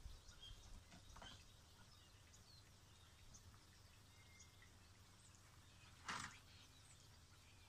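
Near silence: faint scattered birdsong chirps over a low steady hum, with one brief louder puff of noise about six seconds in.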